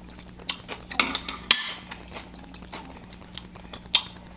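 Close-up eating sounds: a scattering of short clicks and taps from chopsticks and mussel shells, the sharpest about a second and a half in.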